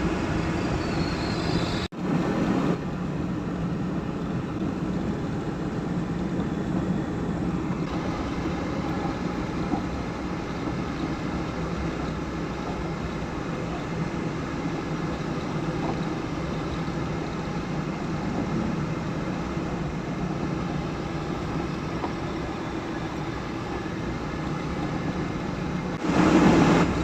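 Steady engine and road noise of a car being driven, heard inside the cabin, with a brief sudden dropout about two seconds in.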